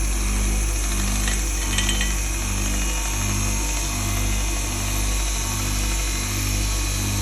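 An electric sharpening grinder's motor runs steadily with a low hum that swells and fades gently, and a few brief high scratches about one and a half seconds in as the sword's steel touches the abrasive.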